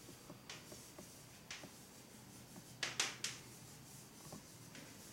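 Chalk writing on a blackboard: a few short, sharp taps and strokes at irregular intervals, the loudest a quick cluster around the middle.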